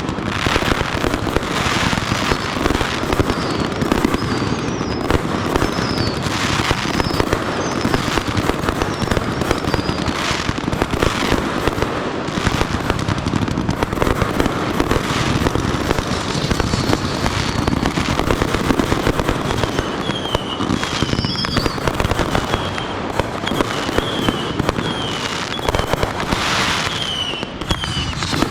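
Fireworks display in a continuous finale-style barrage: dense, overlapping bangs and crackling with no break. High, wavering whistles ride over it for a few seconds at a time.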